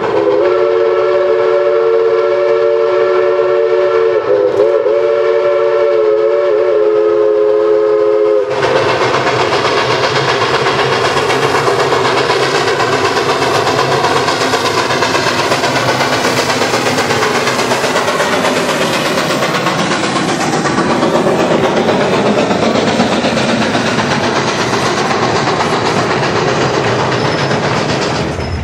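Steam locomotive's chime whistle blowing one long, steady chord for about eight seconds, wavering twice before it cuts off. Then the locomotive works hard past at close range, its exhaust and the rolling train making a loud, dense noise.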